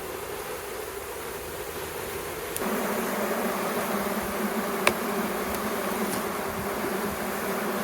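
Honeybees buzzing around an open hive: a steady, droning hum that gets louder about two and a half seconds in. A single sharp click comes near the middle.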